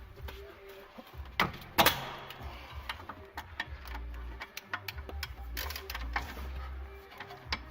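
Metal hand tools clicking and knocking as a wrench with an 18 mm socket works on a car's brake caliper bolts: irregular sharp clicks, with two louder knocks about one and a half and two seconds in.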